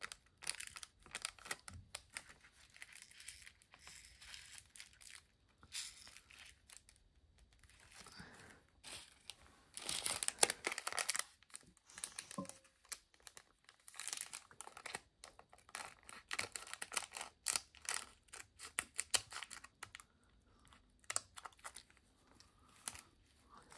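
Small plastic bags of diamond-painting drills crinkling and rustling as they are handled and opened, with scattered light clicks and rattles of the tiny resin drills going into sorting trays. The sound comes in short, irregular bursts, busiest about ten seconds in.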